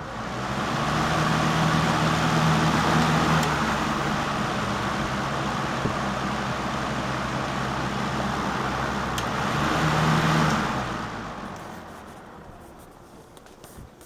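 Circa 1965 Lakewood Country-Aire 12-inch metal box fan starting up and running: a steady rush of air over a low motor hum. About ten and a half seconds in it dies away over a few seconds as the fan winds down.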